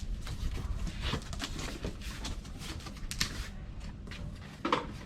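Packaging being handled while the inflatable boat is unboxed: scattered rustles, scrapes and light knocks over a low background rumble.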